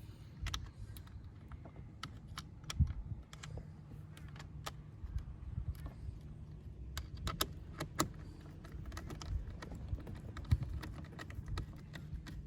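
Irregular small clicks and taps of plastic parts being handled and fitted while a power window master switch assembly is reassembled, over a low steady hum.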